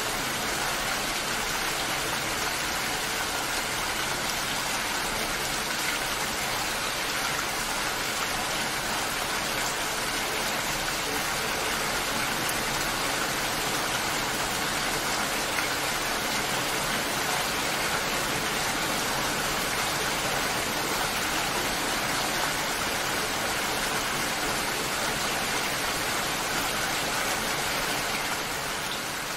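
Steady rain falling, an even unbroken hiss with no single drops standing out, easing slightly in level near the end.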